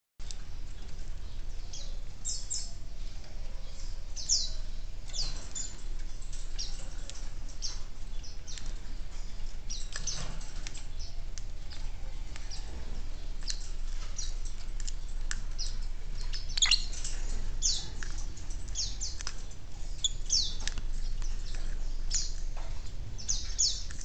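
Caged lovebirds chirping: short, high-pitched chirps repeated irregularly, with scattered sharp clicks.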